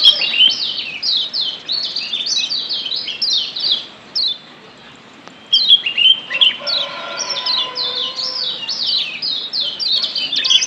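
Kecial kuning, the Lombok yellow white-eye, calling in fast runs of short, high, downward-sweeping chirps: the 'ciak jos' chatter used as a stimulant to make caged kecial sing. The chattering breaks off for about a second and a half near the middle, then starts again.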